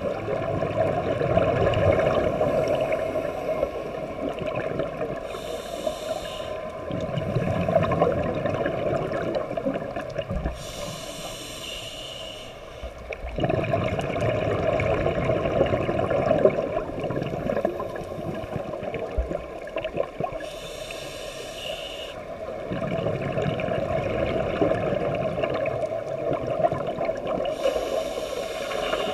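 Scuba diver breathing through a regulator underwater: four hissing inhales several seconds apart, with gurgling, rumbling exhaled bubbles between them.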